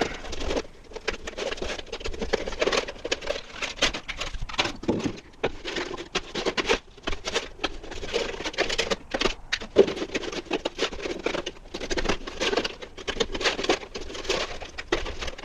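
Stiff plastic from a cat-litter container being cut and trimmed into pieces: a dense, irregular run of small clicks, crackles and scrapes with brief pauses.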